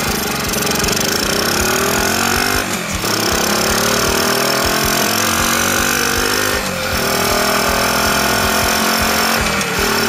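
Honda Chaly CF70's small single-cylinder four-stroke engine pulling under way, its freshly overhauled engine running on a newly set carburettor. The pitch climbs, drops back about three seconds in and again near seven seconds in as it shifts up, then climbs again.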